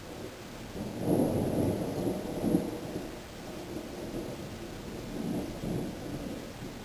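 Low rumble of a windstorm, swelling about a second in and easing off over the next few seconds.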